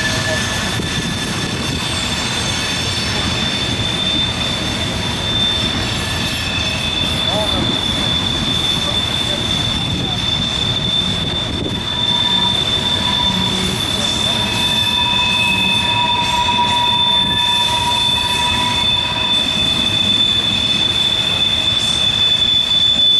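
Freight cars rolling past on a sharp curve: steel wheel flanges squealing against the rail in several steady high tones, with a lower squeal joining for a while past the middle, over the continuous rumble of wheels on track.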